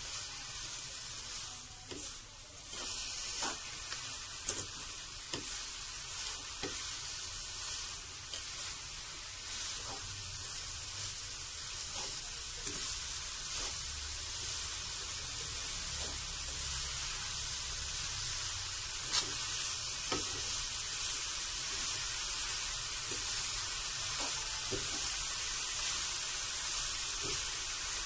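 Grated coconut with pandan leaves being stirred and turned in a pan with a wooden spatula: soft scrapes every second or so over a steady hiss.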